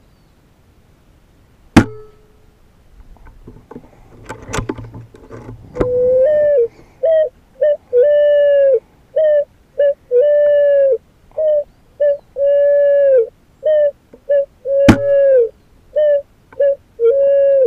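Air rifle firing two sharp cracks, about 2 s in and about 15 s in; the later shot hits a picazuro pigeon about 140 m away and knocks feathers off it. Between the shots come faint handling clicks. From about 6 s in, a loud steady whistling tone repeats in on-off pulses of uneven length.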